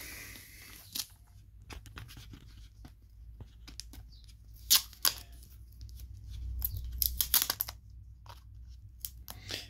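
Fingertips and nails picking and scratching at the edge of a peel-open booklet label on a plastic herbicide bottle: scattered small scratches and clicks of paper and plastic, with two sharper clicks about five seconds in and a denser run of crinkling about seven seconds in.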